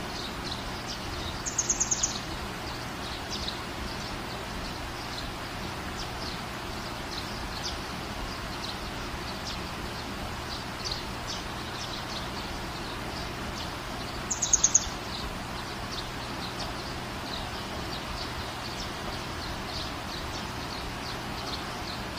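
Kitchen knife dicing a tomato on a ceramic plate: light, irregular taps of the blade over a steady background hiss. Twice, near the start and again about two-thirds of the way through, a short rapid run of about five high chirps stands out as the loudest sound.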